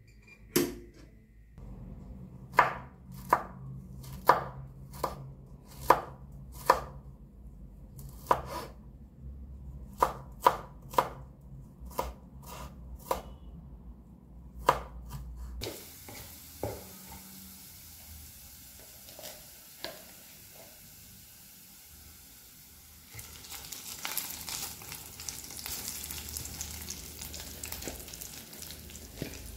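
Kitchen knife slicing garlic on a wooden chopping board: a sharp knock with each cut, about one or two a second, thinning to a few scattered knocks after about fifteen seconds. Near the end a steady sizzling hiss comes in as food starts to fry.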